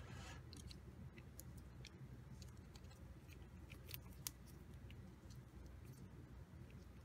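Faint scattered clicks and light taps of resin figure-kit parts being handled, as spears are pushed into the bust while it is dry-fitted. The clicks are clearest a little under 2 s in and around 4 s in, with near-silent room tone between.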